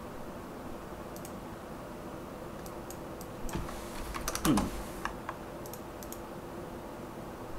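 Computer keyboard keys being pressed: a few scattered clicks, then a quick run of keystrokes about halfway through, with a short low falling sound at their loudest point and a couple more clicks after. A steady low hum lies underneath.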